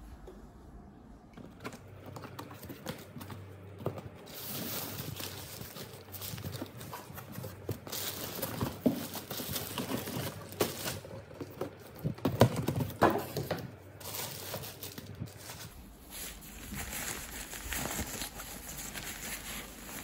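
Crinkling and rustling of a clear plastic bag and folded PVC vinyl from an inflatable pool being handled, starting a second or two in, with a few louder knocks partway through.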